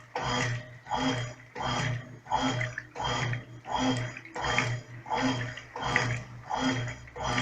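Brastemp Clean 5 kg top-loading washing machine agitating a load of coloured clothes on its gentle delicate cycle, near the end of the wash. The agitator motor hums in even strokes, about three every two seconds, each with a slosh of water.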